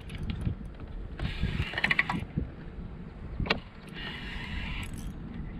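Fishing reel being cranked in bursts of about a second while fighting a hooked fish, with a single sharp knock about halfway through.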